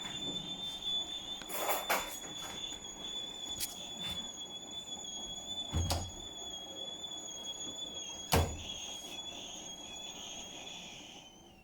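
Hotpoint appliance squealing: one steady high-pitched squeal that wavers slightly, then dips in pitch and fades out near the end. A few knocks sound over it, the loudest about eight seconds in.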